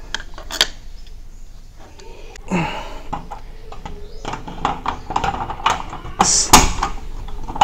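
Small clicks, taps and scrapes of a metal sliding-door lock plate being handled and fitted into its slot in an aluminium door frame, with a louder knock about six and a half seconds in.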